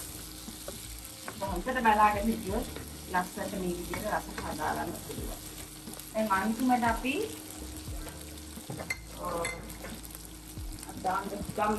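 Seafood and sausages sizzling in a frying pan while a wooden spoon stirs and turns them, with scattered clicks and scrapes of the spoon against the pan.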